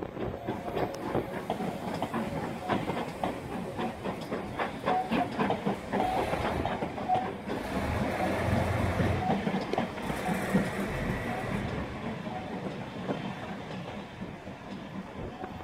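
A steam-hauled train of passenger coaches passing close by, the wheels clicking over the rail joints, with the locomotive working hard at its head farther off; the sound eases slightly as the train draws away near the end.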